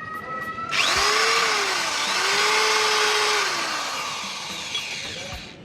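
Homemade mixer grinder driven by an old electric drill motor, switched on suddenly and running loudly at high speed. Its motor pitch rises, dips briefly, picks up again, then falls as it slows and winds down.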